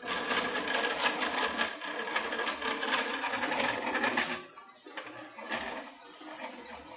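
CraftBot 3D printer printing: stepper motors whirring and parts rattling with rapid clicks as the print head moves, louder for about the first four seconds and quieter after.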